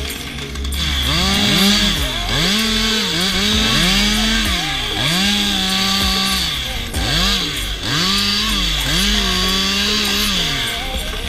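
Chainsaw engine revved up and down over and over, about eight throttle bursts that each climb quickly, hold at full speed for a second or so, then drop back toward idle.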